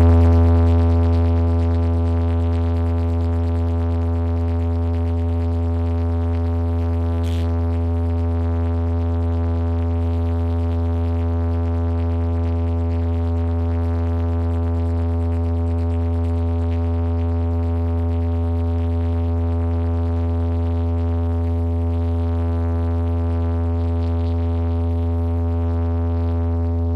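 One deep synthesizer bass note held steady and unchanging, played through DJ bass speakers as a sound check. It is loudest at the start and settles a little in the first few seconds.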